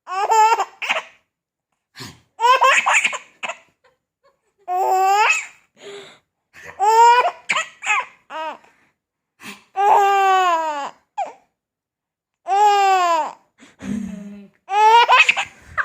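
High-pitched laughter in about eight separate bursts, each a falling "ha-ha-ha" run, with clean silent gaps in between.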